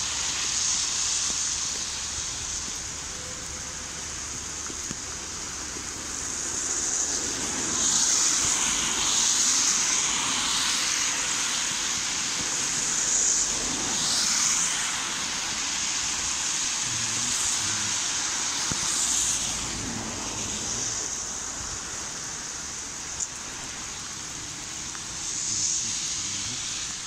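Car tyres hissing on a wet road as several cars pass one after another, each a swell of spray hiss that falls in pitch as it goes by.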